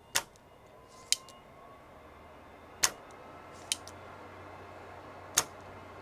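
Small spring-loaded desoldering pump snapping: about five sharp clicks a second or so apart as it is cocked and fired at solder joints, which it is failing to clear.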